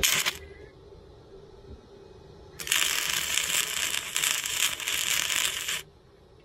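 Electric arc welding a steel chain hook onto a tractor's loader bucket: a brief crackle of the arc at the start, then a steady sizzling crackle of about three seconds from partway in that cuts off sharply when the arc is broken.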